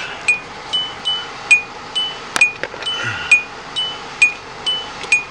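A Hyundai's electronic warning chime repeating about twice a second, alternating between two high pitches, the reminder a car gives when a door is open or the key is left in. A single sharp knock about two and a half seconds in.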